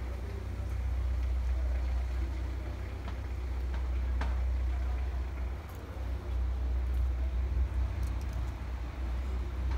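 Low, unsteady rumble on a handheld phone's microphone as it is carried along, with a few faint clicks.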